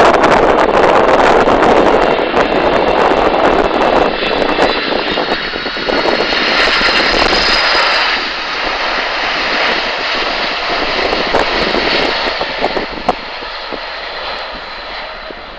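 Boeing 747-400 freighter's four jet engines on final approach: a steady roar carrying a high whine that is strongest about six to eight seconds in as the jet passes, then fades as it moves away down the runway.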